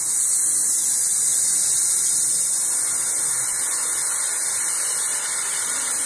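Oxy-acetylene welding torch flame hissing steadily. It grows louder at the start as the oxygen is turned up to form an oxidising flame.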